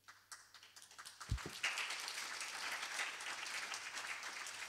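Audience applauding, building over the first second or so into steady clapping, with one dull low thump about a second in.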